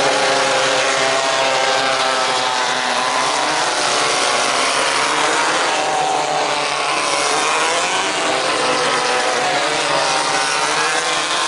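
Engines of several 1600cc off-road racing buggies running hard, their pitch rising and falling as the drivers work the throttle and the cars pass.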